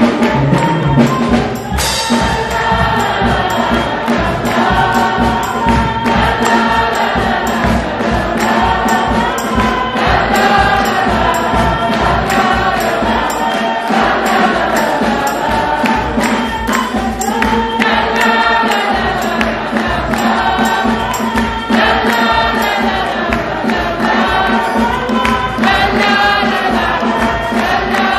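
Church choir singing a hymn together in full voice, with hand claps keeping a steady beat.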